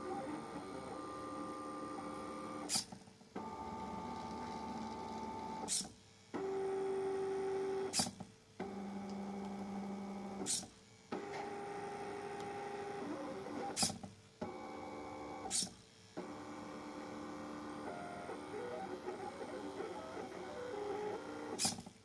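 Stepper motors of a DIY AxiDraw-style pen plotter whining as it draws. Each stroke holds a steady tone whose pitch changes from stroke to stroke, and between strokes there are short pauses with sharp clicks, about seven in all.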